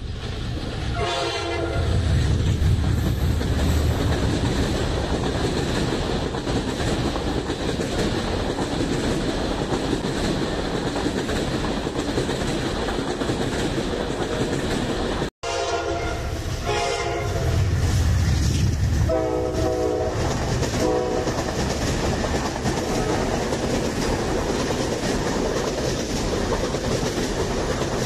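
Diesel passenger train sounding its horn once as the locomotive approaches, its engine rumbling loudly as it passes beneath, then the steady rumble and clatter of coaches rolling through. About halfway, after a brief break, a train sounds its horn in four short blasts, with another loud engine rumble and the running noise of coaches.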